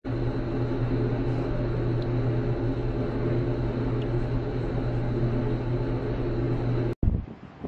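Elevator car running: a steady mechanical hum with a faint high whine above it, cutting off suddenly near the end.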